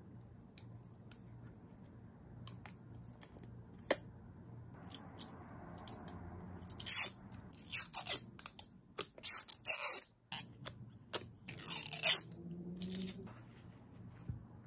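Small clear acrylic pieces being handled, with a few light clicks. These are followed by a run of short, loud crackling rustles of plastic film and a paper wipe being worked by hand.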